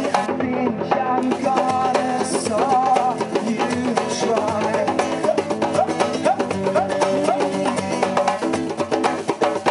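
Live music: a man singing into a microphone over a strummed acoustic guitar, with percussion keeping the beat.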